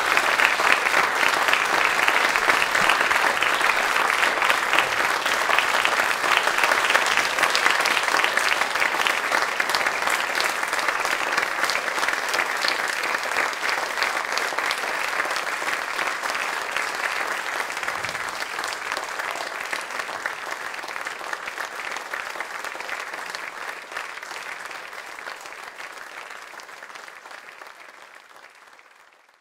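Audience applauding, a dense steady clapping that fades away gradually over the second half.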